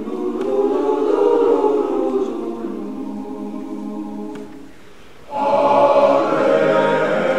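High school men's chorus singing a spiritual in several-part harmony. The voices swell, thin out to a quieter passage, then come back in loud and full about five seconds in.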